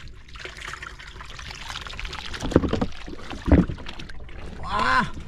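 Water sloshing and trickling, with two dull thumps about two and a half and three and a half seconds in.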